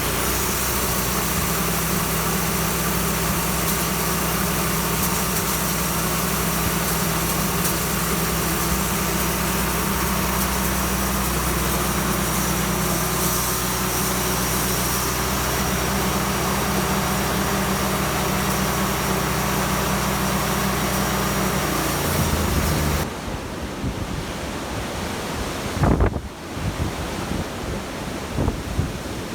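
Petrol engine of a bandsaw sawmill running steadily at constant speed, then cutting off abruptly about three-quarters of the way through. After that, gusty wind buffeting the microphone.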